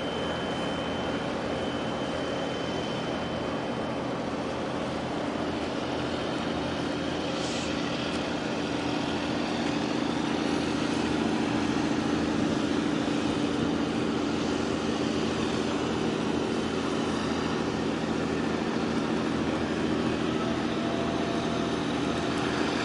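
Steady low engine drone from a large container ship under way, over a constant hiss, growing a little louder about halfway through.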